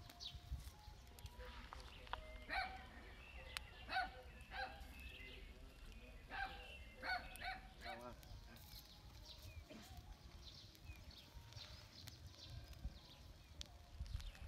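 Faint, scattered honking calls of farm fowl, most of them in clusters in the first half, over a steady low rumble.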